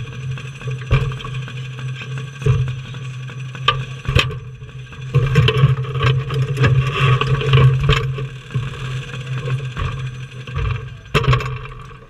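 Quarter midget race car engine idling steadily with a light rattle and occasional knocks, then shutting off at the end.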